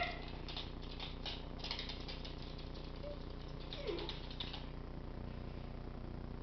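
Miniature schnauzers' claws clicking and skittering on a hard wooden floor in two runs of quick ticks, with a short falling whimper from a dog about four seconds in.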